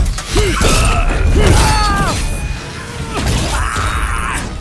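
Added fight sound effects for a toy-robot battle: hits and a shattering crash with mechanical clanks, over background music. Short arching and falling pitched tones run through it.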